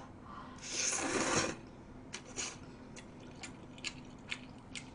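A person slurping a mouthful of stir-fried ramyeon noodles for about a second, then chewing with a string of small, uneven wet mouth clicks.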